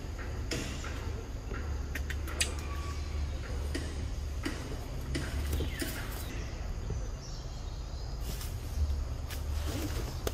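Outdoor tree-canopy ambience with a steady low rumble, scattered clicks and rustles, and a few short high calls that glide downward.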